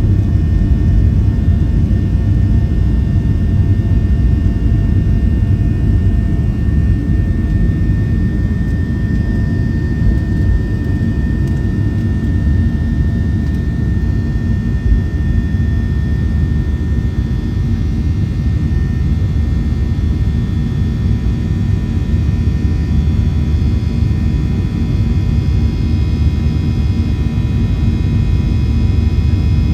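Boeing 737-700 cabin during the climb: a steady rumble of CFM56-7B turbofan engines and airflow, with faint steady whines above it. One whine fades out about halfway through.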